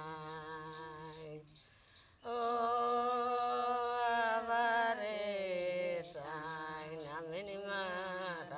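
A solo voice singing a slow melody with long held notes and wavering pitch, fading briefly about two seconds in before a loud sustained note.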